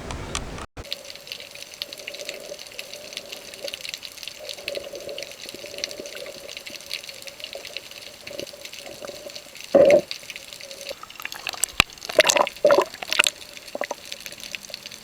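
Water splashing and dripping, with a few louder splashes about ten seconds in and again a couple of seconds later.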